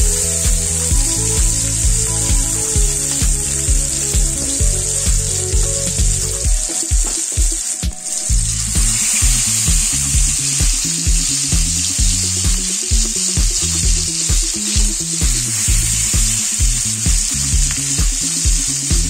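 Marinated chicken legs sizzling in hot oil in a frying pan, a steady crackling hiss, with background music with a steady beat over it.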